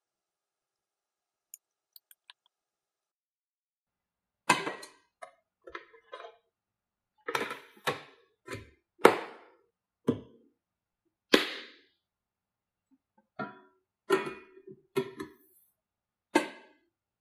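Stainless-steel Harvest Right freeze-dryer trays clattering as they are handled and set down on a granite counter: about a dozen sharp, ringing metal clanks at irregular intervals, starting a few seconds in.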